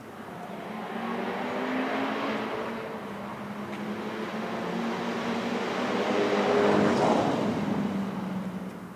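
Motor vehicles passing by, their engine and tyre noise swelling twice, louder the second time, then fading.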